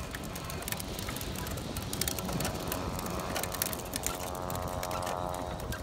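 Pedal-driven beach fishing reel winding in a torpedo's line: chain, sprockets and spool ticking and clicking rapidly. A steady whirring tone joins in from about a second and a half in and fades near the end.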